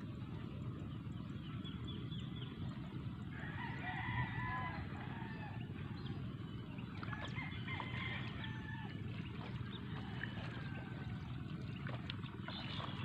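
Roosters crowing several times, with short high bird chirps, over a steady low background rumble.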